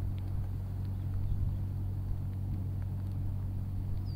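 Steady low engine hum, a motor running without change throughout, with a short high chirp near the end.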